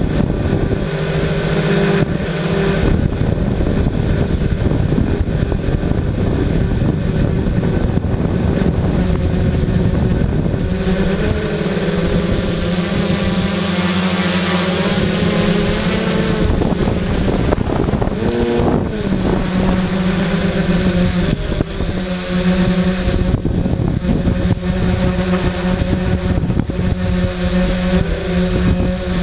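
Homemade quadcopter's electric motors and propellers buzzing in flight, picked up by the camera on board along with a hiss of propeller wash and wind. The pitch shifts up and down several times as the throttle changes, most noticeably around the middle and near the end.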